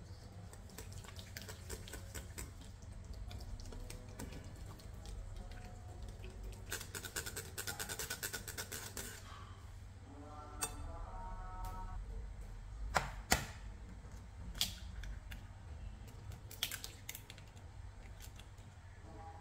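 Wire whisk clicking and clattering against a ribbed glass bowl as soft cream cheese spread, yogurt and sugar are beaten together, the clicks coming thick and fast for a couple of seconds a third of the way in. Later come a few sharp separate knocks, the loudest two close together, as eggs are cracked and added to the bowl.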